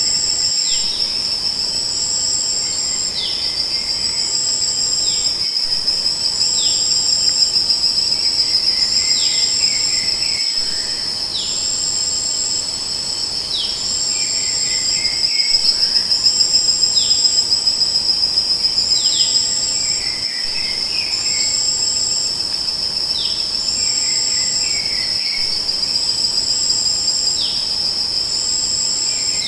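Chorus of crickets and other insects: one steady high-pitched trill with a second, higher insect pulsing in short regular chirps, and short falling chirps recurring every second or two.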